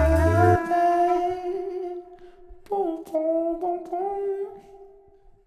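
The ending of a song played back: the bass drops out about half a second in, leaving held, gently wavering melodic notes in a voice-like tone that come in short phrases and fade away near the end.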